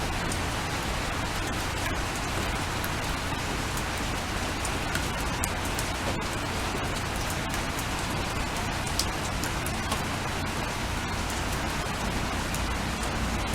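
Steady rain falling, with many single drops ticking sharply on a hard surface.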